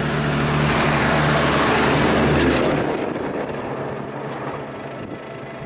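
A heavy goods truck passing close by in the opposite direction: its engine hum and tyre rush build to a peak about two and a half seconds in, then drop away quickly, leaving the steady road noise of the moving car.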